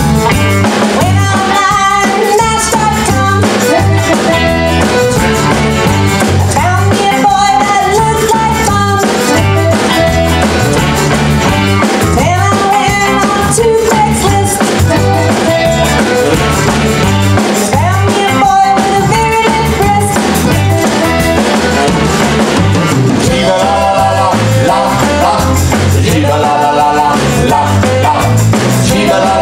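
Live band playing an upbeat song: drum kit, electric guitar, bass and piano accordion, with a tambourine and maracas shaken along, and voices singing near the end.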